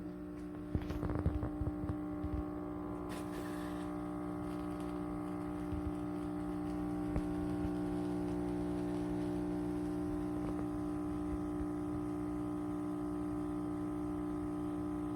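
KitchenAid KF8 fully automatic espresso machine brewing coffee: its pump runs with a steady hum, with a few clicks and rattles from the machine about a second in and an odd knock later.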